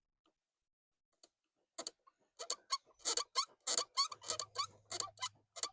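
Quick, irregular clicks and knocks from the steering column parts of a 1988 Chevrolet Cavalier as a corrosion-seized piece is wiggled and pulled by hand. They start about two seconds in and come several a second.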